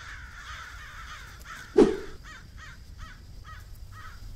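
Paper towel rubbed across a car's window glass, with one sharp, loud squirt of a spray bottle of cleaner about two seconds in. After the squirt come quick, even back-and-forth wiping strokes, about four a second.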